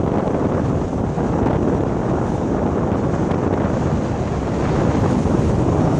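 Strong wind buffeting the microphone over choppy sea water washing and slapping against the pier pilings, a steady rushing noise.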